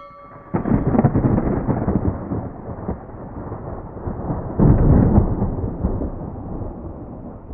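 Two deep rumbling booms like thunder, the first about half a second in and a louder one about four seconds later, each dying away slowly.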